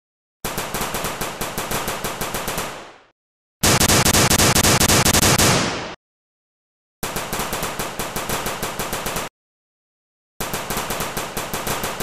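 Automatic gunfire sound effect: four bursts of rapid fire, each two to three seconds long, with dead silence between them. The first burst fades away at its end, and the second is the loudest.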